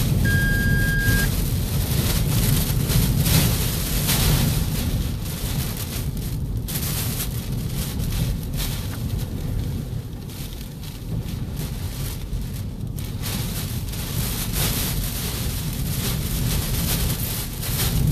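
Hurricane-force wind and driving rain lashing a vehicle, with deep wind buffeting on the microphone and gusts that swell and ease. A brief steady tone sounds near the start.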